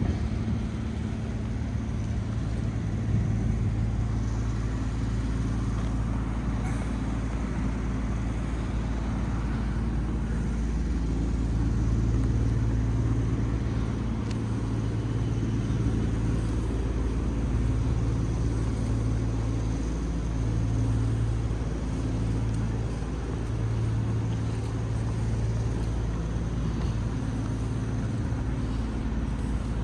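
Steady low rumble of a motor vehicle running, with a low hum that fades and returns a few times.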